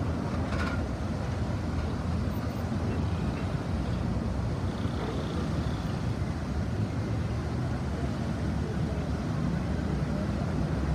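City road traffic: a steady low rumble of passing cars. There is a brief click about half a second in.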